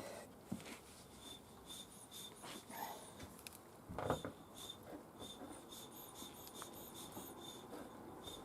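Faint rubbing and scraping of a tyre-plug insertion needle being shoved and twisted into a tyre's tread, working a rubber repair string into a screw puncture, with one sharper knock about four seconds in.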